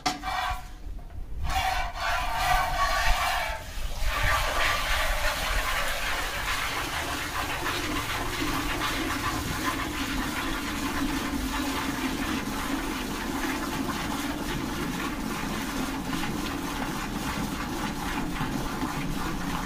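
Hand milking: rapid jets of milk squirting from a Gir-cross cow's teats into a steel pail, settling into a steady, fast hissing rhythm about four seconds in.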